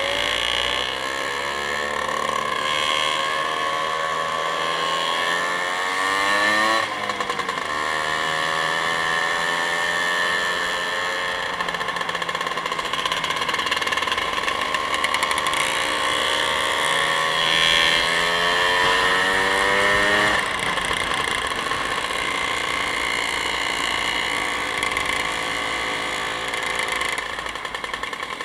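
Motorcycle engine accelerating under load, its pitch rising as it pulls through the gears, with a sharp drop at a gear change about seven seconds in and another about twenty seconds in. Steady wind and road noise runs underneath.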